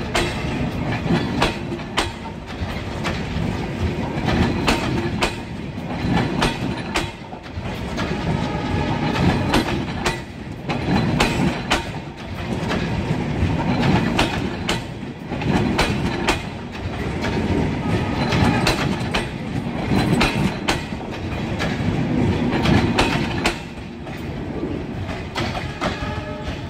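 Stainless steel passenger coaches of a departing intercity train rolling past close by, their wheels clattering over the rail joints in a steady clickety-clack. The sound rises and falls every couple of seconds and drops lower near the end as the last coach goes by.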